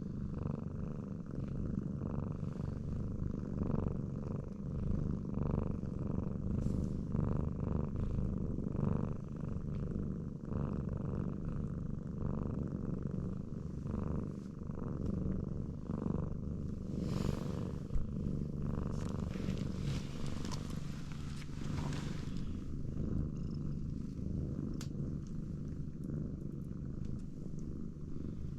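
Domestic cat purring close to the microphone, a steady rumbling purr that swells and eases with each breath. A few brief rustling noises come through partway along.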